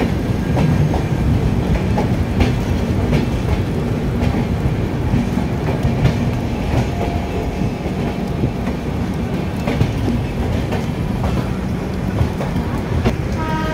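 Train running through a station yard, heard from an open coach doorway: a steady rumble of wheels on rail with irregular clicks and knocks over rail joints and points.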